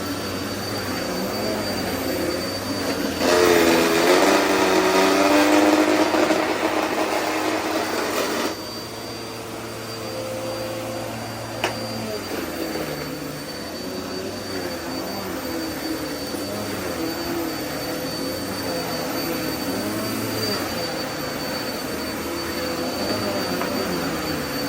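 Vacuum cleaner running steadily, with a thin high whine over its motor hum. About three seconds in it gets louder for about five seconds, its pitch dipping then holding, before dropping back. A single sharp click comes near the middle.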